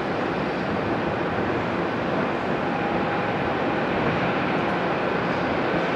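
Boeing 767-300ER's twin jet engines at takeoff thrust during the takeoff roll: a steady rushing noise with a faint whine in it.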